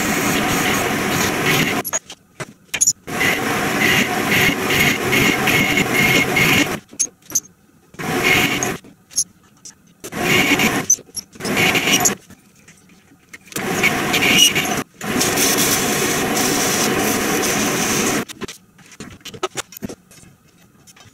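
Small WM210V-type bench metal lathe running in about seven separate runs, some under a second and some three to four seconds long, started and stopped in turn with quiet gaps between. Each run is a steady machine noise with a faint whine.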